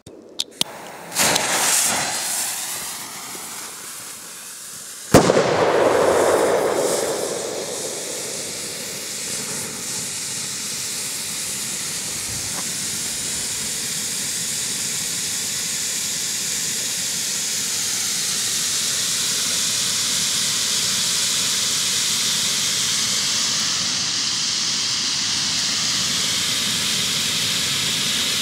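Short hissing spurts, then a single sharp firecracker bang about five seconds in. After the bang, a steady hiss from a small ground firework spewing flame and white smoke runs on.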